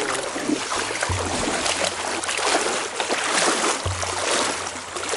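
Legs wading through shallow river water, sloshing and splashing with each step, with a low dull bump about a second in and again about four seconds in.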